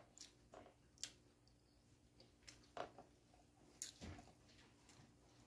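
Faint, close-up eating sounds from people eating rice and viands by hand: about seven scattered soft clicks and wet smacks of chewing and picking at food, over a faint steady room hum.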